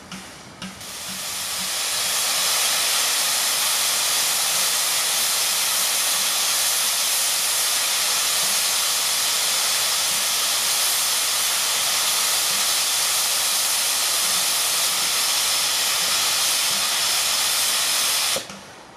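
Narrow-gauge steam locomotive standing and blowing off steam: a loud, steady hiss that builds up over about two seconds, holds, then cuts off suddenly near the end.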